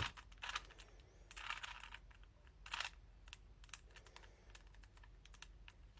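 A 3×3 Rubik's cube being twisted through an algorithm: faint, irregular plastic clicks of the layers turning, with a couple of brief scraping turns.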